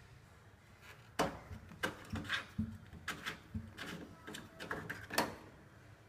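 Plastic clicks and knocks from the drain-pump filter cap of an IFB front-loading washing machine being twisted loose and pulled out, a sharp click about a second in and another near the end the loudest.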